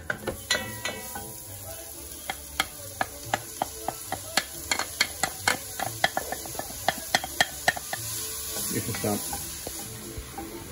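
Chopped onion sizzling in an enameled cast-iron Dutch oven as it is stirred with a wooden spoon. The spoon knocks against the pot about twice a second, and the sizzle swells briefly near the end.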